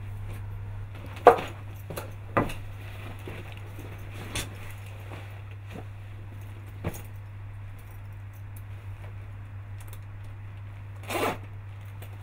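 Leather motorcycle jacket and suit being put on: a few sharp clicks and rustles of stiff leather, then a zipper pulled near the end, over a steady low hum.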